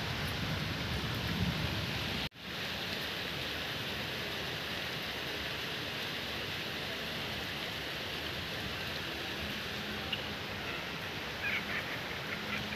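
Steady hiss of rain falling during a night thunderstorm. The sound drops out for a moment about two seconds in.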